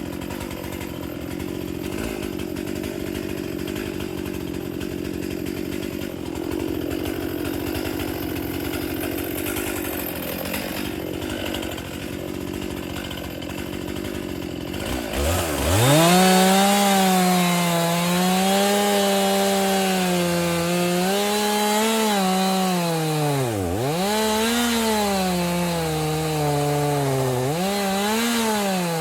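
Stihl two-stroke chainsaw running under load for about half the time. About halfway through it revs up to a high, wavering full-throttle whine, with two sharp dips in speed near the end.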